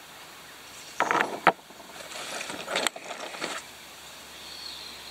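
Agate and jasper rocks being handled on a wooden table, scraping and clacking against each other as one is set down on the pile and another picked up. There are two sharp knocks, about one and a half and three seconds in.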